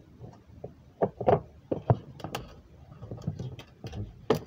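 Irregular sharp clicks and taps of plastic fidget toys being handled, such as silicone and plastic pop-it poppets, with the loudest click near the end.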